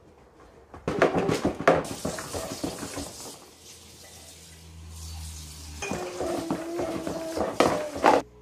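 Plastic toys on a baby's activity-centre tray clattering and clicking as the baby slaps and bats at them, in bunches of knocks. Near the end a steady pitched tone runs for about two seconds.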